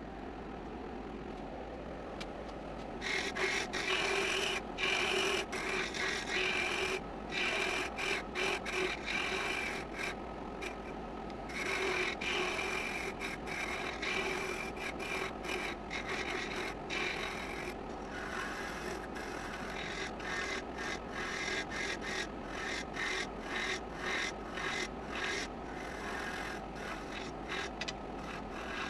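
Wood lathe running, and from about three seconds in a hand-held turning tool scraping the end of a small spinning wooden blank: a rough rasping cut in many short passes with brief breaks between them.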